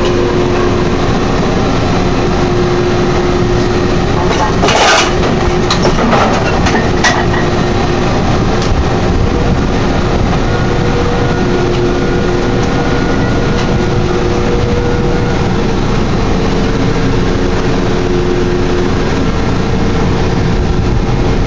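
Drilling rig machinery running loudly and steadily while drill pipe is tripped, with a few sharp metal clanks of pipe-handling gear about five to seven seconds in.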